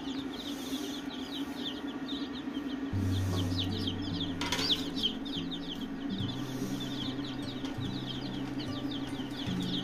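A brood of newly hatched chicks peeping constantly, many short high falling peeps overlapping. From about three seconds in, background music with low held bass notes plays under them.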